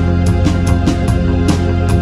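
Background music with a steady beat over sustained low bass and keyboard notes.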